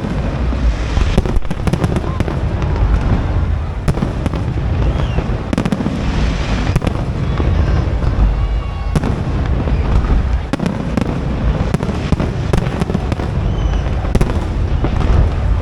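Aerial fireworks display: a dense, continuous barrage of bangs and crackling with deep rumbling booms, and a few short high whistles.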